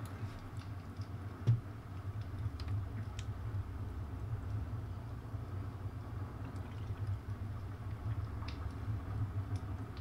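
Low steady background hum with a few faint, scattered clicks.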